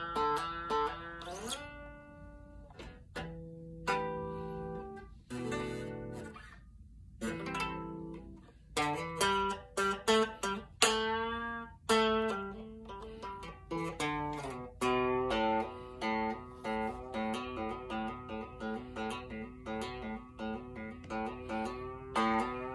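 Telecaster-style electric guitar played solo, picked single notes and chords. It starts sparse, with a bend near the start, then about halfway settles into a steady, repeating picked pattern.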